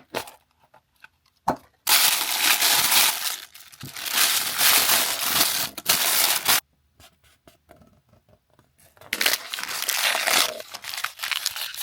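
Crinkly toy packaging being torn open and crumpled by hand, in two long stretches with a few small clicks and rustles between them.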